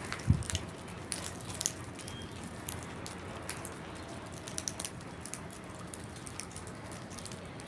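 Crows feeding, with scattered light taps and clicks of pecking and handling food over a steady background hiss, and one dull thump about a third of a second in.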